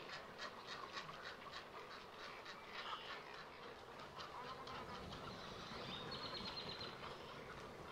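Faint calls from a nesting colony of herons, egrets and spoonbills: many overlapping harsh calls with rapid clicking in the first few seconds, and a short high trill about six seconds in.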